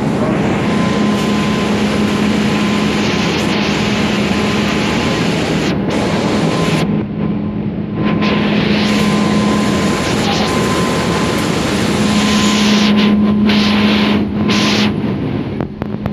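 Hydroelectric power station machinery running: a loud, steady roar with a constant low hum under it. The hiss in the upper range drops away briefly about seven seconds in and a few times near the end.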